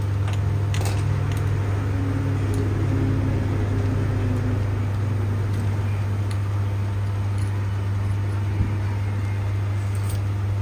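Steady low hum of electric fans running, with a few light metal clinks as engine parts are handled and fitted.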